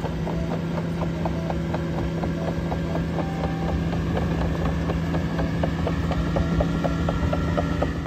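Caterpillar AP655F tracked asphalt paver running as it crawls forward: a steady diesel engine hum with a quick, even clicking from the moving machine.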